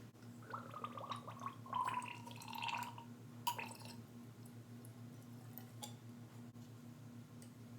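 Fork oil gurgling and slurping inside a Yamaha YZ125 dirt bike fork as the damper is pumped by hand to work the air out and settle the oil level, for about three seconds, ending in a sharper click. A few faint clicks follow.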